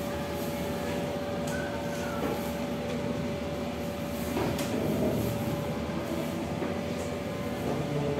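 Steady hum of an electric fan with one constant tone, with a few light clicks and rustles of plastic evidence bags being handled.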